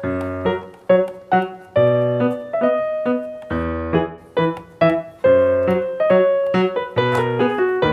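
Background music: a bright, bouncy piano or electric-piano tune played in quick struck notes and chords.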